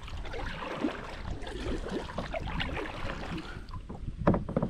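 Double-bladed kayak paddle dipping into the water with each stroke, splashing and dripping, with wind on the microphone. A louder thump stands out near the end.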